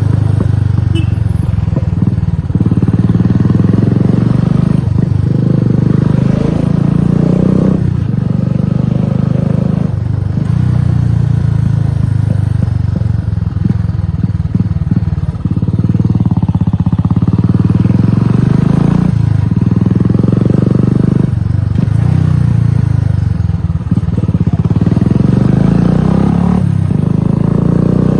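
Royal Enfield Classic 350's single-cylinder engine through an aftermarket exhaust while the bike is ridden: a deep, steady exhaust note that swells and eases several times.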